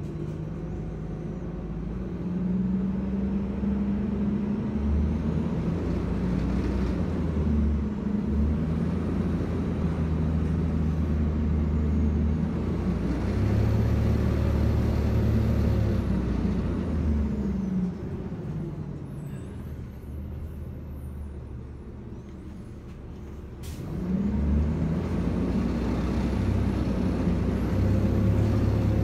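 Transit bus diesel engine heard from inside the passenger cabin, rising in pitch as the bus pulls away, easing off to a lower, quieter run about two-thirds of the way through, then pulling away again after a single sharp click.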